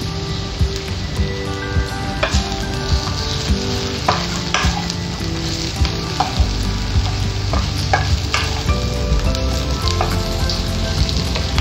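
Meat and vegetables sizzling in a wok while a wooden spatula stirs them, with scrapes and knocks of the spatula against the pan now and then.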